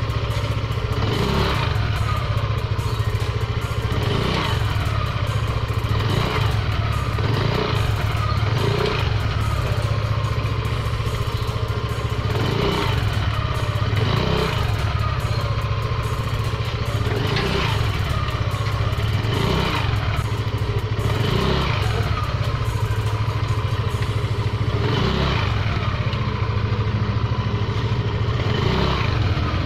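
Yamaha Aerox scooter engine running with the rear wheel spinning, its pitch repeatedly dipping and coming back up about every one to two seconds as the newly fitted rear disc brake is applied and released.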